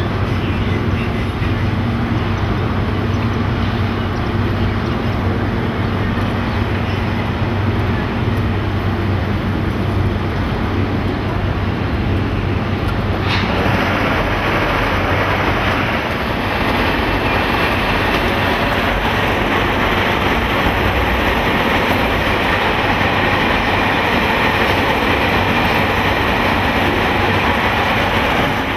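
Delhi Metro train running along an elevated viaduct: a steady rumble with a low hum. About halfway through, the sound changes abruptly to a brighter, hissier outdoor noise.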